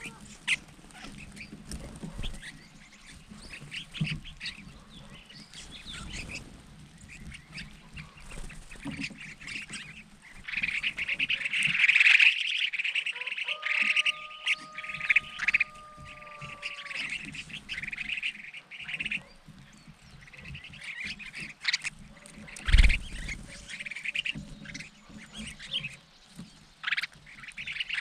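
A flock of crested finchbills calling and chattering, with bursts of many overlapping calls, densest about ten seconds in and again near the end. A single loud thump sounds about three-quarters of the way through.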